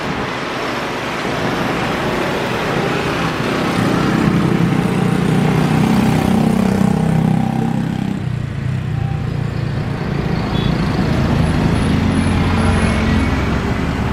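A Boeing 777-300ER's two GE90-115B turbofans at takeoff thrust as the airliner rolls, lifts off and climbs away. It is a loud, steady jet rumble that swells about four seconds in, eases briefly, then comes back deep and low near the end.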